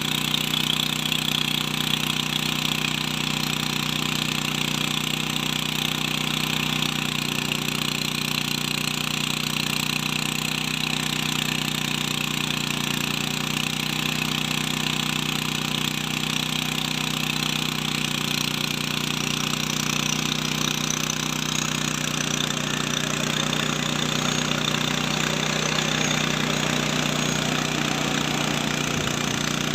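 Agricultural spraying drone's rotors running, a steady hum that holds one pitch throughout.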